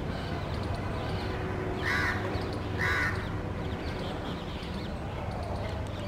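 Two harsh bird calls about a second apart, over a steady low background hum.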